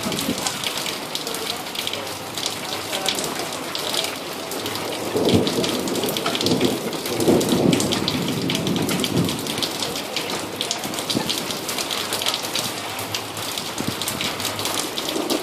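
Heavy rain falling steadily in a thunderstorm, a dense patter of drops, with a rumble of thunder starting about five seconds in and rolling for around four seconds.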